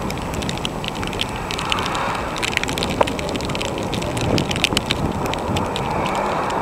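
Wind buffeting and crackling on the microphone over the engine of a BMW 5 Series GT revving in the distance as the car slides sideways through deep snow toward the listener.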